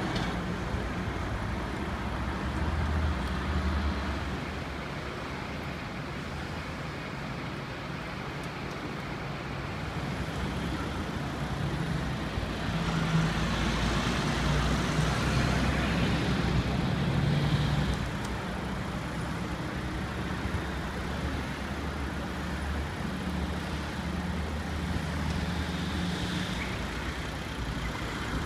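Motorway traffic passing, a steady rush of tyres and engines over a low engine hum, swelling louder for several seconds around the middle.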